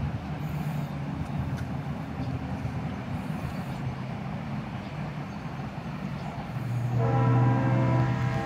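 Steady low engine rumble. About seven seconds in, a horn-like chord of several steady tones sounds for about a second and a half over it.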